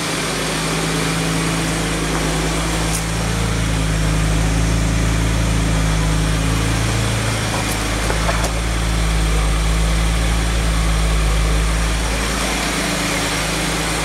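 1990 Jaguar XJS's fuel-injected V12 idling steadily and smoothly at about 900 rpm, a deep even hum that swells a little in the middle as the car is circled.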